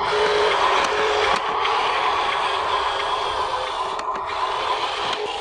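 Radio-controlled dump truck's electric drive motor and gearbox whirring steadily as it drives and turns on concrete.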